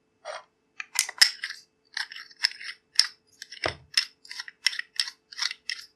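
A wooden end cap with a metal thread being screwed by hand onto the threaded metal end of a wooden mallet handle: a quick string of small metallic clicks and scrapes from the threads, several a second.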